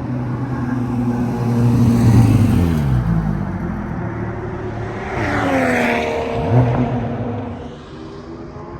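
Porsche 911 GT3 naturally aspirated flat-six engine running hard, its pitch dropping steeply twice, the second time with a rush of noise, like a car driving past.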